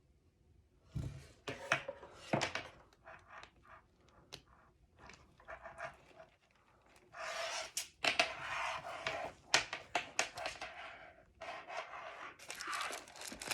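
Rustling and rubbing of packaging and a handbag being handled, with scattered light taps and clicks early on and longer stretches of rustle in the second half.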